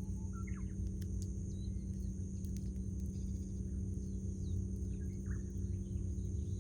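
Small birds chirping in short, scattered calls over a steady low rumble and a high, steady insect-like hiss, with a few sharp crackles from a wood fire.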